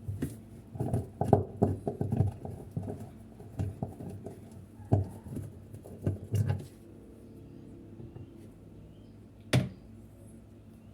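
A bolt being undone on a washing machine, with irregular clicks and knocks of the tool and plastic parts for about six seconds. A faint steady hum follows, and a single sharp click comes near the end.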